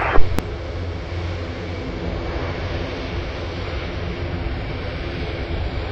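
Airbus A400M Atlas's four TP400 turboprop engines running steadily with their eight-bladed propellers turning, a low, even drone with a steady hum. A sharp click comes just after the start.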